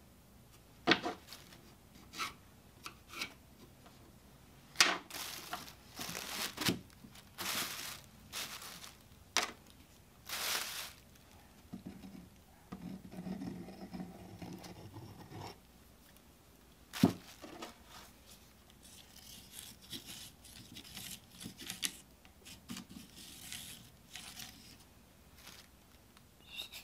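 Hand work on a plywood board: a few sharp knocks of wood scraps being set down, between runs of short rustling and scraping strokes from crumpled brown paper and wood glue being spread with a popsicle stick.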